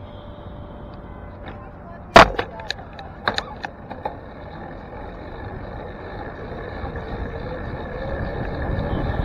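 Bicycle handlebar-camera audio: about two seconds in, a sharp clack followed by a few lighter clicks and knocks as the bike is set moving, then a steadily rising rush of wind and tyre noise as the bike picks up speed, over a bed of city traffic.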